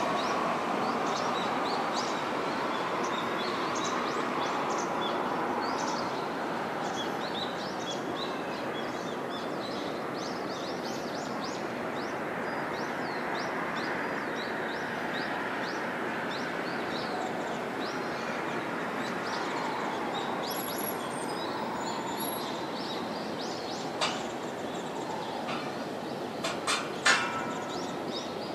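Distant jet noise from an Embraer regional airliner on approach, a steady rush that eases a little after the first few seconds as the plane draws away. Small birds chirp throughout, and a few sharp clicks come near the end.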